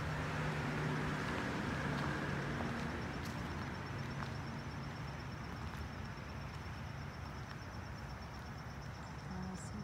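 Steady low rumble of distant road traffic, slowly fading, under a faint, high, steady insect trill.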